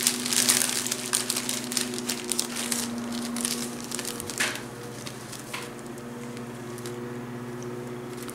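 Small plastic zip bags of diamond-painting drills crinkling and crackling as hands sort through them. The crackling is dense for the first few seconds, then thins to a few crackles, over a steady low hum.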